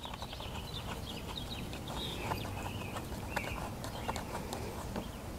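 Birds chirping, with scattered light clicks and taps of metal parts as the bar nuts are put on a chainsaw's bar studs by hand.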